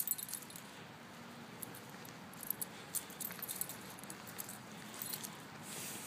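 Metal tags on a dog's collar jingling in faint, scattered clinks as the dog moves about on its leash, over a soft steady outdoor hiss.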